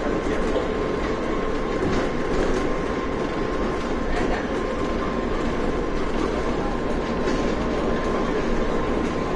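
A RapidKL Monorail rubber-tyred train running steadily along its concrete guideway, heard from inside the passenger car as an even rumble with a faint steady high tone over it.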